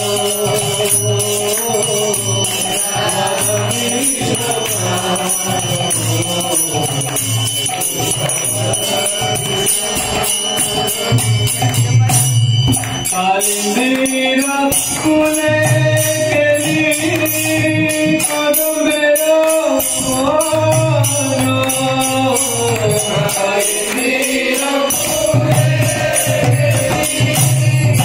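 Devotional bhajan music: a male voice singing a melodic line, backed by the deep, steady strokes of a mridanga (khol) barrel drum and jingling percussion. The singing comes through most clearly in the second half.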